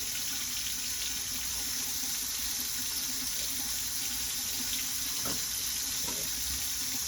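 Kohler Fairfax bathroom sink faucet running hot water in a steady, even stream with no hammering, which suggests the new control cartridge has cured the noise.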